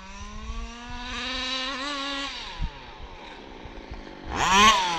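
Zenoah G320 32cc two-stroke engine of a large-scale RC buggy, running through a silenced side pipe. It accelerates with a steadily rising pitch that fades about two seconds in. Near the end comes a loud, brief burst of revs whose pitch rises and then drops sharply.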